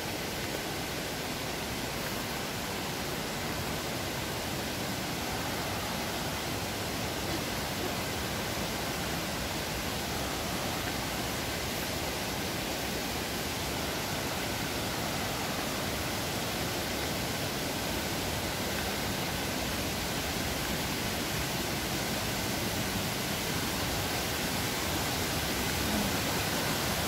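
Waterfall and rocky mountain stream rushing in a steady roar of falling water, growing a little louder near the end as it is approached.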